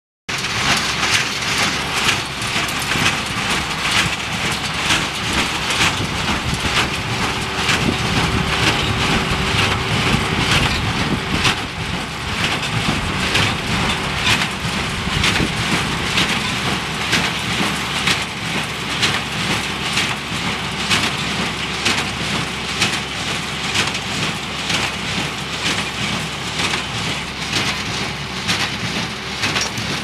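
New Holland 273 small square baler running behind a tractor, baling hay into small square bales, its mechanism knocking in a steady rhythm over the tractor's engine rumble.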